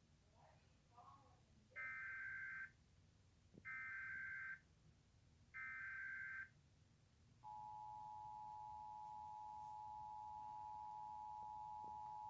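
Emergency Alert System test: the SAME digital header sent as three short bursts of high data tones, each about a second long, then the steady two-tone EAS attention signal starting about seven seconds in and holding.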